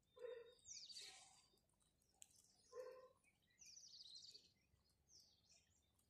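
House sparrows chirping faintly. Short runs of high chirps come about a second in and again around four seconds, and two short, lower-pitched calls sound at the start and just before three seconds.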